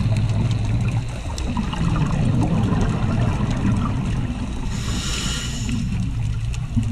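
Scuba regulator breathing recorded underwater: low bubbling rumbles of exhalation swelling and easing, with a hissing inhalation about five seconds in, over scattered sharp clicks.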